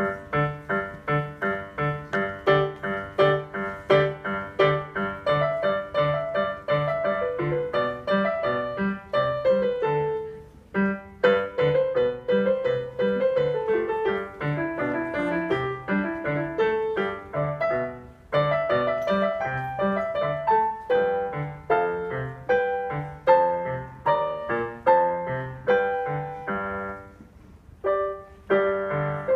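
Digital piano played solo: a flowing piece with steady, evenly spaced low notes under a melody line. The playing eases to a quieter moment about a third of the way through and again near the end.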